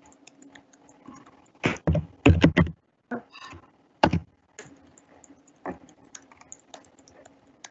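Typing on a computer keyboard: irregular key clicks entering a web address, with a few louder keystrokes in quick runs about two seconds in and one hard stroke about four seconds in.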